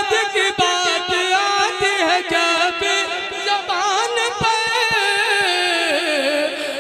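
A man singing a naat in a classical style, with long held notes and wavering, ornamented turns of pitch.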